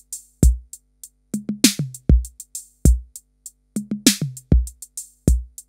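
Drum-machine beat of kick drum, toms and hi-hats, with a bar that repeats about every two and a half seconds, played through a DIY analog diode-VCA compressor whose attack is set by a 10k potentiometer. With fast attack settings the compression kicks in gradually, so the hits sound less snappy than hoped.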